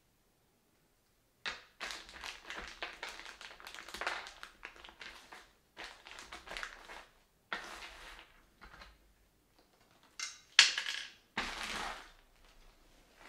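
Rustling and crinkling of the packaging of a new flush-mount ceiling light fixture being handled and unwrapped, in irregular crackling bursts with a few short pauses and the loudest crackle about ten and a half seconds in.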